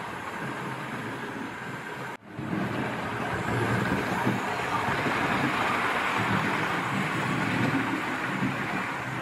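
Hornby OO gauge Flying Scotsman model locomotive and coaches running on the track: the steady whirr of the small electric motor and the rumble of wheels on rail. It cuts out briefly about two seconds in, then comes back louder as the train approaches.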